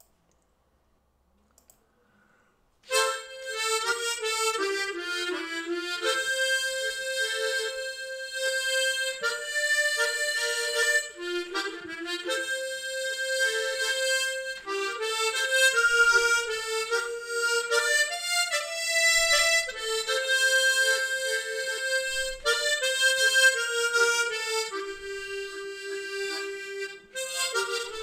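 Solo harmonica playing a slow song melody, often with two notes sounding at once. It starts about three seconds in, after a short silence.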